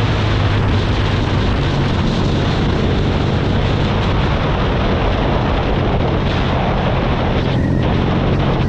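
Wind buffeting the microphone at road speed, with a BMW R nineT Pure's boxer-twin engine running steadily underneath.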